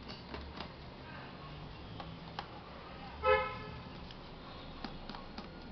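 One short vehicle horn toot about three seconds in, the loudest sound, over faint scattered clicks and taps of small laptop parts and tools being handled.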